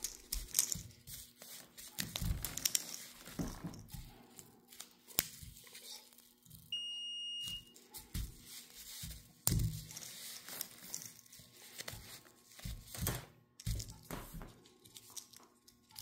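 A multimeter's continuity beep: one steady high tone lasting about a second, about seven seconds in, which signals a closed circuit across the rocker switch's contacts. Around it are scattered clicks and rustling from handling the switch, its wires and the probe leads on a foam sheet.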